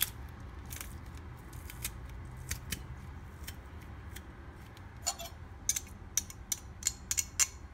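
Metal garlic press crushing garlic cloves, its metal parts giving sharp clicks at irregular intervals, coming faster in the last few seconds as a knife scrapes the pressed garlic off the press.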